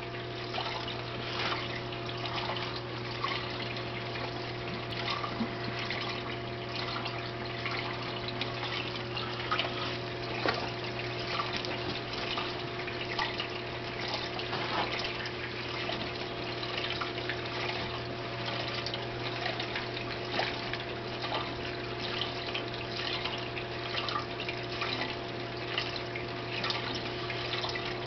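Reef aquarium's circulating water trickling and splashing without a break over the steady low hum of its pumps.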